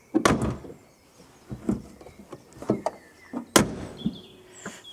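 Citroën C6 bonnet being shut: a thump just after the start, a few lighter knocks as it is pressed down, then a louder slam about three and a half seconds in. The owner says the bonnet doesn't fit because he didn't line it up properly.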